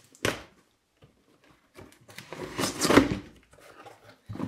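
Cardboard shipping box being opened by hand. A sharp snap comes just after the start; a bit over two seconds in, a longer tearing, scraping rush of packing tape and cardboard flaps being pulled open swells and fades, followed by softer rustling of the packing inside.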